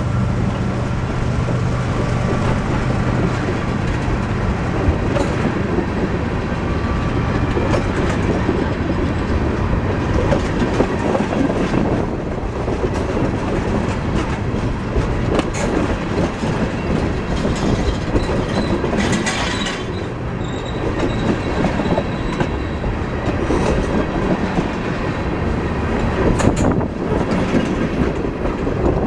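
A CSX freight train rolling past, its rail cars' wheels clacking over the rail joints with a steady rumble and scattered sharp clicks. A low steady hum runs through roughly the first dozen seconds.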